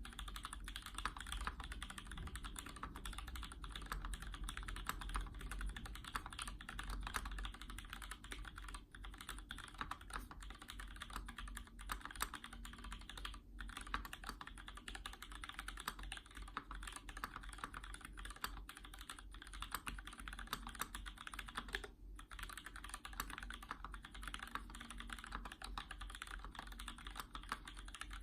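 Continuous, fairly fast typing on an E-Yellow Canoe FE mechanical keyboard with lubed custom Gateron switches on 55 g springs, lubed GMK stabilizers and original PBT keycaps from a Cherry G81-3000. The keystrokes run densely, broken by a few brief pauses.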